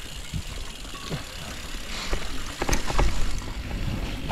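Mountain bike rolling down a dirt trail: a low tyre rumble with clicks and rattles from the bike over bumps, getting busier and louder from about two seconds in.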